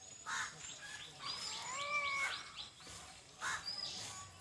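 Several small birds calling: quick high chirps throughout, harsh short calls near the start and about three and a half seconds in, and one longer, drawn-out call in the middle.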